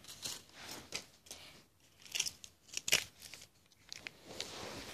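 Hands rummaging among small toy cars and paper: scattered rustles and small clicks, with one sharp click about three seconds in and a longer rustle near the end.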